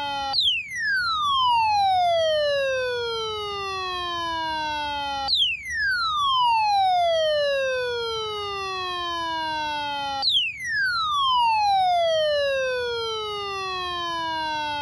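Midland ER210 weather radio's alert alarm sounding for the NOAA weekly test. It is a siren-like tone that falls in pitch over about five seconds, then jumps back up and falls again, three times over.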